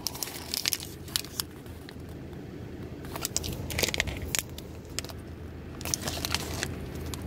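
Plastic wrapper of a Jack Link's beef steak strip crinkling as it is handled and peeled back from the jerky, in irregular sharp crackles.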